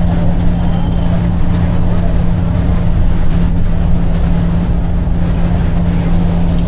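Steady loud drone inside a double-decker bus cabin, with a constant low hum over a rumble: the bus's engine and cabin air conditioning running.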